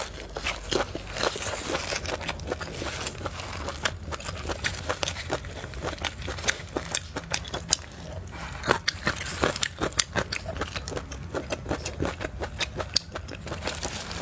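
Close-up mouth sounds of biting and chewing pan-fried pork large intestine: a dense, irregular run of short clicks and smacks.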